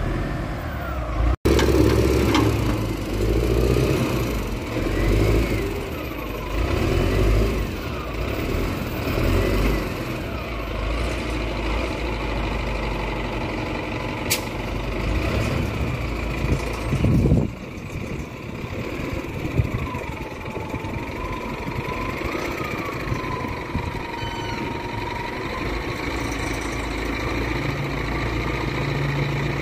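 Wheel loader's diesel engine running, its level rising and falling over the first ten seconds or so, then steady.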